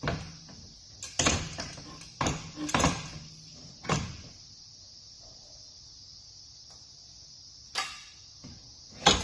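Metal boat-loader crossbars and fittings being handled and set onto roof-rack channels: a run of sharp knocks and clunks in the first four seconds, a pause, then two more knocks near the end.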